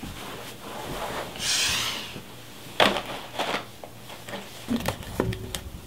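A crinkly chip bag and a cardboard snack can being handled on a wooden table: a rustle about a second and a half in, then several sharp clicks and crinkles.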